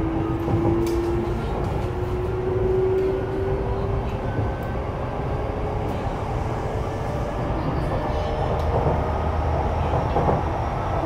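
Sotetsu 12000 series electric train running, heard from inside motor car Moha 12501: steady wheel and track rumble, with a motor whine rising slightly in pitch over the first few seconds before fading into the running noise.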